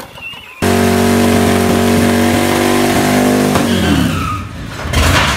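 John Deere riding lawn tractor doing a burnout: its engine held at full throttle with the rear tyres spinning and smoking on a concrete floor. A steady loud drone starts suddenly about half a second in, holds for about three seconds, then falls in pitch as it winds down, with a short noisy burst near the end.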